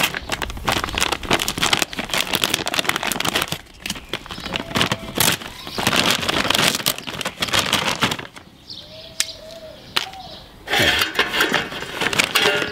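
Crinkling and rustling of a foil-lined paper bag of charcoal briquettes as it is torn open and handled, a steady run of sharp crackles with a quieter stretch partway through.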